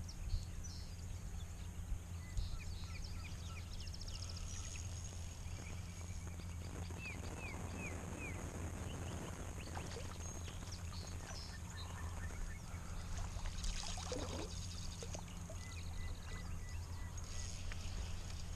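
River water running steadily, with small birds chirping repeatedly over it.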